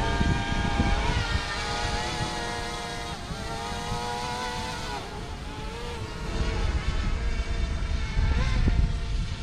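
DJI Mavic Mini quadcopter's propellers whining, the pitch of the whine shifting up and down as the drone is steered. Wind rumbles on the microphone underneath.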